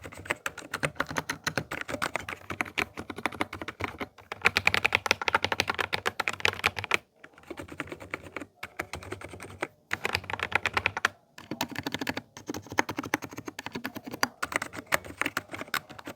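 Typing on an Epomaker TH80 Pro mechanical keyboard fitted with Wuque Studio silent switches: fast runs of keystrokes in several bursts, broken by brief pauses.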